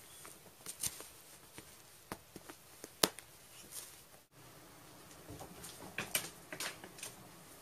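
Light rustling and small clicks of a kitten scuffling in a fleece blanket, with one sharp click about three seconds in. After an abrupt cut, a cat's paws patter and claws click on a wooden floor as it runs and leaps.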